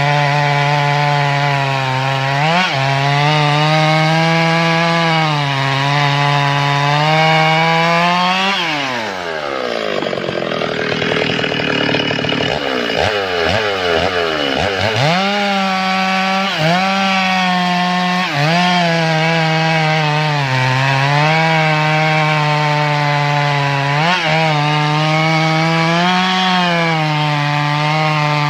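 Stihl MS 382 72 cc two-stroke chainsaw at full throttle cutting through a log, its pitch wavering and dipping briefly under load. About eight seconds in the revs fall away as the bar comes out of the cut. It revs back up about fifteen seconds in and cuts steadily under load again until near the end.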